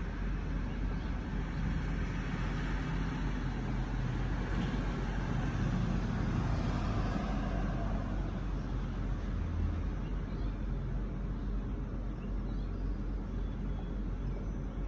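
A car engine running steadily, a little louder for several seconds in the middle.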